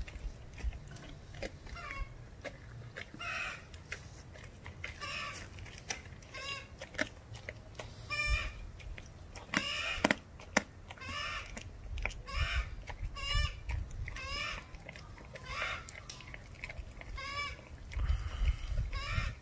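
A four-month-old German shepherd puppy chewing a raw chicken quarter close up: crunching of bone with clicky chewing. Short squeaky sounds come about every half second to a second.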